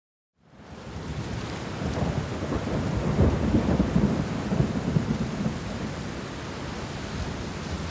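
Rain falling with a long, low roll of thunder, fading in after a brief silence at the start; the rumble is strongest in the middle and eases off toward the end.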